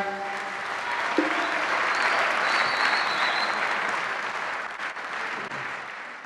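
A large audience applauding just as the ensemble's music ends, with the clapping dying away near the end.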